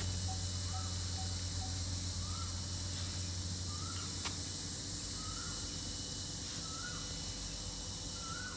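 A bird repeating a short chirp that rises and falls, about once every second and a quarter, over a steady low hum and a high, even hiss.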